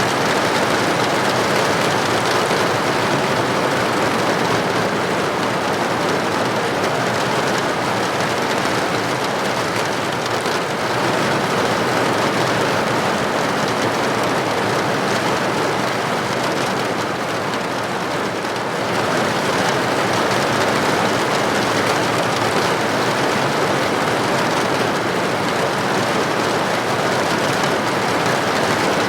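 Steady heavy rain falling, an even hiss of countless drops on surfaces.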